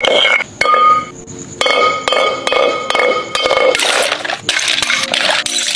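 Stone pestle striking a glass wine bottle in a stone mortar: a series of sharp blows, each leaving the bottle ringing. About four seconds in the glass gives way, and the blows turn to a dense crunching and clinking of shattered glass being crushed and ground.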